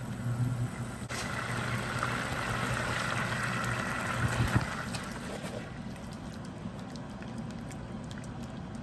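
Thin soy-and-mirin sauce coming to a boil in a small metal saucepan: a steady bubbling hiss starts about a second in and eases off around halfway, over a low steady hum.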